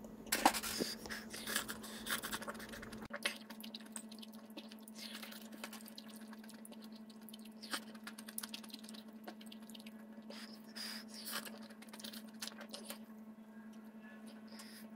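Quiet eating sounds: chewing and small wet mouth clicks, with steel chopsticks tapping and scraping in a ceramic bowl of ramen. A steady low hum runs underneath.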